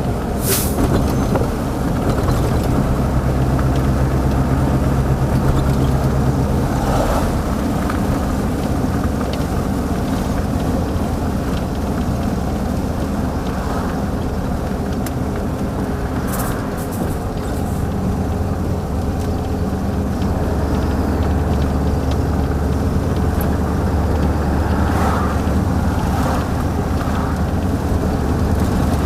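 Mercedes-Benz SK 1748 truck's V8 turbodiesel engine running under way. Its note shifts a couple of times, with a few brief sharp high sounds in between.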